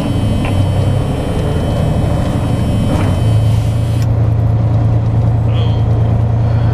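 Semi truck's diesel engine running, heard from inside the cab as the truck rolls slowly: a steady low drone that shifts slightly in pitch about three seconds in.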